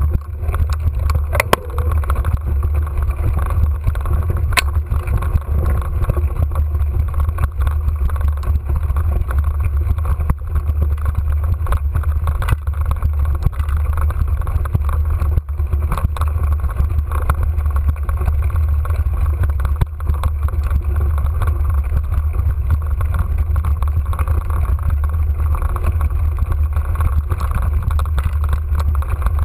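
Mountain bike riding up a singletrack, heard through an action camera's microphone: a steady low rumble of wind and vibration, with the crunch of tyres and scattered clicks and rattles from the bike.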